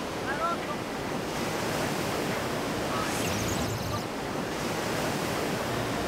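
Ocean surf breaking and churning in white water around a surfboard, a steady rushing wash.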